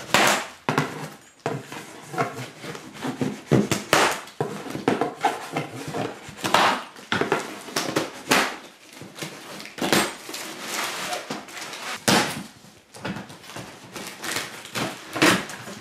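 A large, machete-like knife slicing through cardboard and packing tape to cut open a shipping box, in a string of irregular rasping, scraping strokes with cardboard rustling and knocking.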